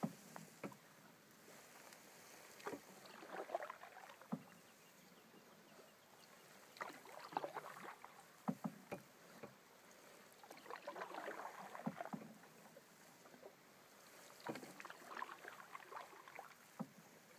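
Canoe paddle strokes on calm water: a soft swish and trickle of water about every four seconds, with a few light knocks against the canoe.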